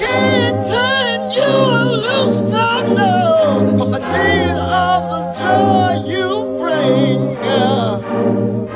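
Background music: a singer's voice gliding up and down over held low chords.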